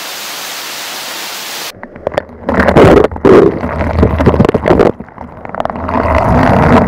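Steady rushing hiss of a waterfall. About two seconds in, the hiss drops out and falling water strikes the camera directly: loud, muffled, irregular splashing that comes and goes.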